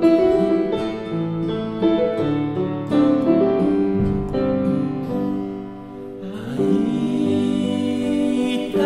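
Slow ballad music with held chords under a melody line. A wash of high sound swells up in the last few seconds.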